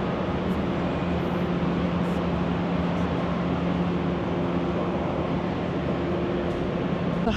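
Steady drone of a car ferry's machinery heard on the enclosed vehicle deck: a constant low hum with a noisy rush over it, from the ship's engines and ventilation fans.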